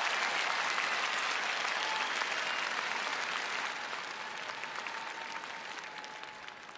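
Arena crowd applauding, dense clapping that gradually dies away.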